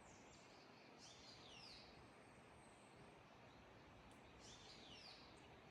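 Faint birdsong: a songbird sings two similar short phrases of sweeping, falling high notes, a little over three seconds apart, over a steady faint hiss.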